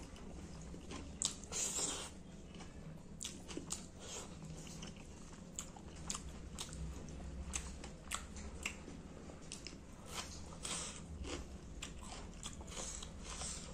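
Close-miked chewing of a mouthful of rice and fish curry, with many irregular, wet mouth clicks.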